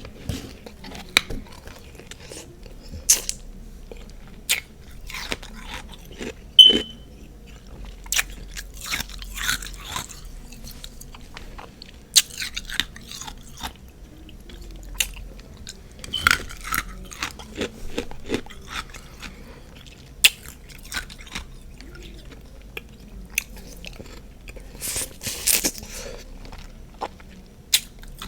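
Crunching and chewing of refrozen freezer frost ice: irregular sharp snaps of bites with bunches of brittle crunching between, the loudest snap about six seconds in.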